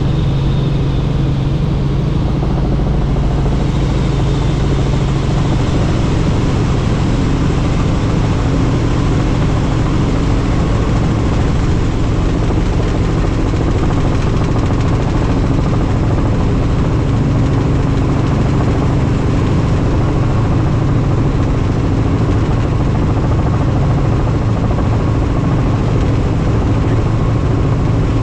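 Helicopter in flight: steady rotor and engine noise, a constant low hum under a wide rushing noise, holding an even level throughout.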